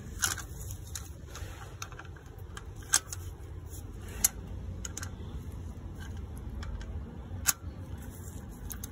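A handful of sharp, irregular metallic clicks as a ratchet and hex socket are fitted onto a gearbox filler plug and worked, over a low steady hum.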